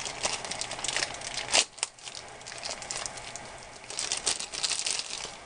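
Plastic packaging crinkling and crackling in irregular fits as a phone charger's power brick is handled and unwrapped, with one sharper crackle about a second and a half in.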